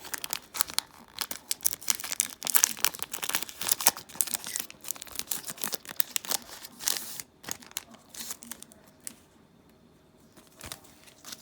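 A Yu-Gi-Oh booster pack's foil wrapper being torn open and crinkled: a dense run of crackling that dies down about seven seconds in, leaving only faint handling sounds.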